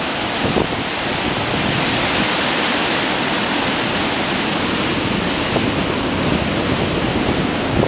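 Sea surf breaking and washing up on a sandy beach as a steady rush of noise, with wind buffeting the microphone.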